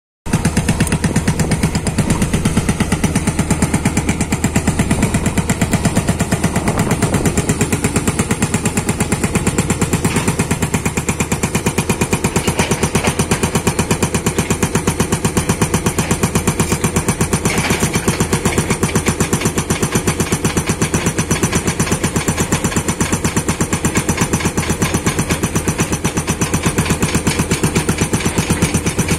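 Rammer hydraulic rock breaker on a Komatsu PC210 excavator hammering rock, its chisel striking in a rapid, steady, even rhythm, with the excavator's diesel engine running underneath.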